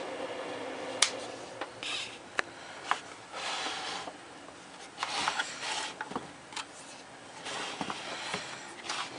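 Small parts and packaging being handled: scattered sharp clicks and taps mixed with short bursts of rustling and scraping.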